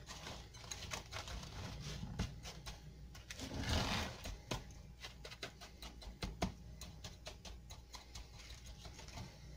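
A measuring cup tapping and pressing graham cracker crumbs down into a springform pan, a quick run of irregular taps and clicks with a short scraping sound about three and a half seconds in.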